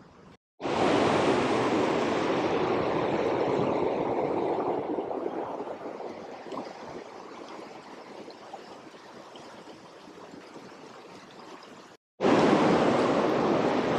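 Fast river current rushing steadily, the river running high and swollen from rain. Loud at first, it fades gradually over several seconds, cuts off abruptly, and returns loud near the end.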